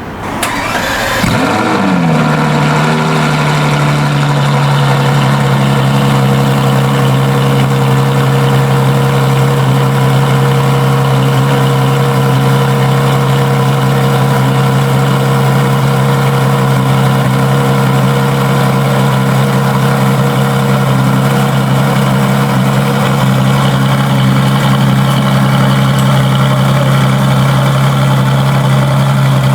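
A car engine starts, flares up briefly about a second in, then drops and settles into a steady idle.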